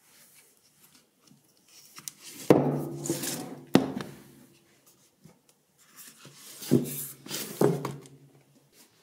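Books being slid out of a tightly packed shelf: covers scuff and rub against their neighbours, with four sharp knocks as books strike the shelf, each ringing briefly, two together a few seconds in and two more near the end.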